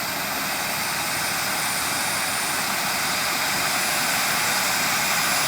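Turbine of a quarter-scale AS350 Ecureuil RC model helicopter (Jakadofsky 5000 Pro) running: a steady rushing jet noise with a thin high whine that climbs slowly in pitch as the sound grows gradually louder.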